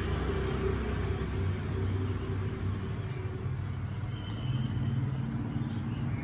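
Steady low rumble of road traffic, with a faint engine hum that fades out about halfway through.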